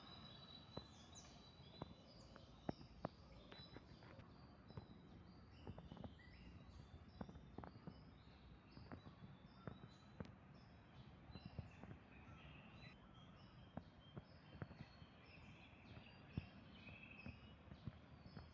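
Many small birds chirping continuously, short quick chirps overlapping one another, over a faint outdoor hum, with scattered sharp clicks.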